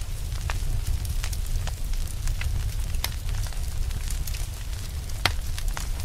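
Wood fire crackling: irregular sharp pops and snaps over a low steady rumble, with one louder pop about five seconds in.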